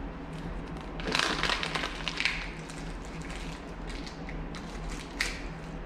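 Plastic blind-bag packaging crinkling and being torn open by hand, a crackly stretch about a second in, followed by a few small clicks and taps.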